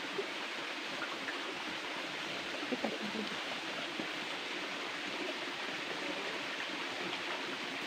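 Steady rushing noise in the open air with no clear source, with a few faint knocks about three seconds in.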